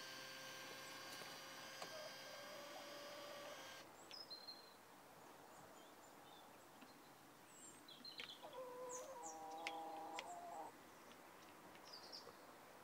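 Faint steady hum from a ChickenGuard automatic coop door's motor winding the door up, cutting off about four seconds in as the door stops. A chicken then gives a drawn-out call about eight to ten seconds in, with small birds chirping.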